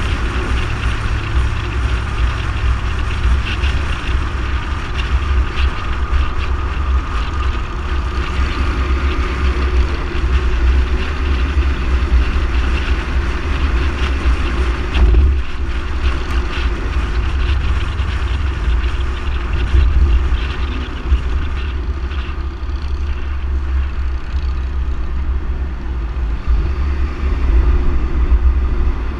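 Car driving at road speed, with steady engine and tyre noise under heavy wind buffeting on the exterior-mounted camera's microphone.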